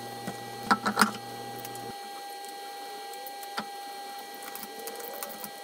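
A few sharp clanks and knocks as a road wheel is lifted onto the hub studs and fitted, over a steady high-pitched hum.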